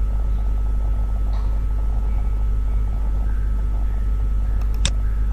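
Steady low hum, with one sharp click near the end.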